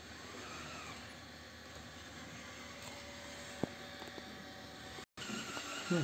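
360 S9 robot vacuum-mop running, a steady motor hum from under the sofa, with a single sharp click about three and a half seconds in. After a brief dropout near the end, the robot's steady whine is clearer as it rolls out on the open floor.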